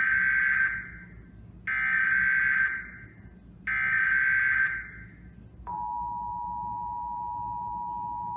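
Emergency Alert System data header: three loud, one-second screeching bursts of digital tones, followed about two seconds later by the steady two-tone EAS attention signal, a harsh dual tone that starts suddenly and holds on.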